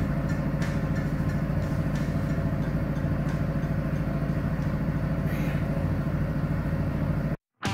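A machine runs steadily with a loud, low, throbbing hum, then cuts off suddenly near the end.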